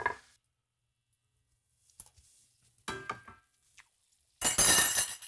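Kitchen clinks of a metal utensil against cookware: a faint tap about two seconds in, a short ringing clink about a second later, then a louder, longer clatter with metallic ringing near the end.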